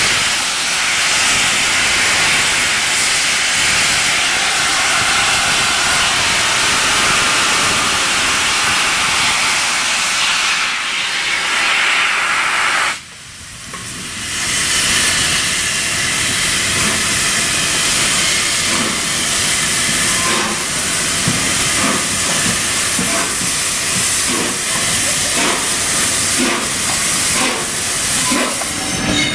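A steam locomotive venting steam in a loud, steady hiss. The hiss drops away suddenly about halfway through, then builds back up and carries on.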